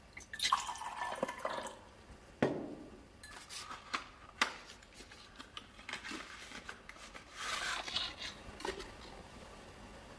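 Liquid cough elixir being poured in two short spells, the first with a falling pitch about half a second in, the second near the end. A sharp knock and a few light clinks come in between.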